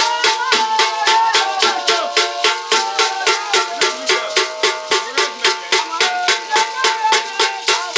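Traditional Ghanaian drum ensemble playing a steady beat, a sharp high stroke about four times a second, with a melody carried over it.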